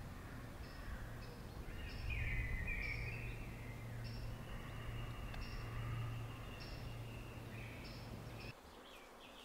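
Faint woodland ambience: a small bird repeats a short high chirp every second or so, another bird warbles, and wind rumbles low on the microphone. It all cuts off abruptly near the end.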